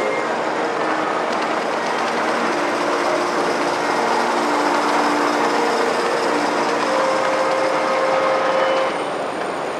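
Gauge 1 live steam model trains running past, including a double-headed pair of BR Standard Class 4 tank locomotives: a steady rattle and clatter of wheels and rolling stock on the track, easing slightly near the end.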